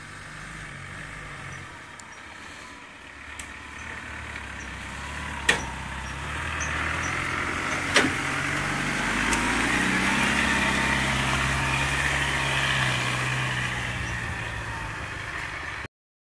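Engine of a Land Rover-based off-road challenge truck running as it drives through mud and brush, getting louder as it comes closer. Two sharp cracks are heard about five and eight seconds in, and the sound cuts off abruptly near the end.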